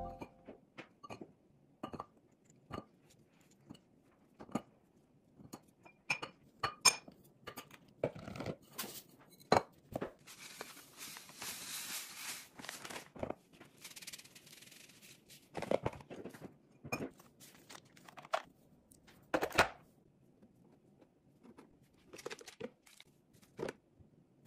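Restocking handling sounds: items tapping and clinking against a glass jar, with packaging crinkling. Near the middle, Epsom salt is poured from its pouch into the jar as a steady hiss for a few seconds.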